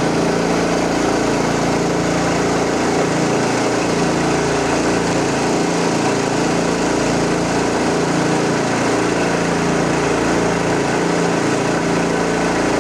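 Small gasoline engine of a 6-inch suction gold dredge running steadily at a constant speed, driving the dredge's pump.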